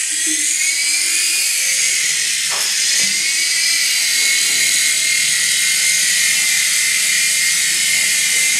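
Small electric motor and spinning rotors of a remote-control toy helicopter in flight, a steady high-pitched whine that wavers slightly in pitch as it flies.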